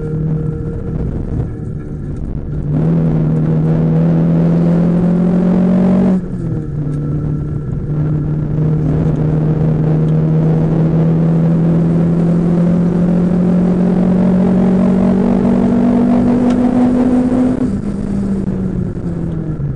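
Renault Clio 172's 2.0-litre four-cylinder engine heard from inside the cabin under hard acceleration on track. Revs climb for a few seconds, drop sharply at an upshift about six seconds in, climb slowly through the next gear, then fall as the throttle comes off near the end, over a steady haze of road noise.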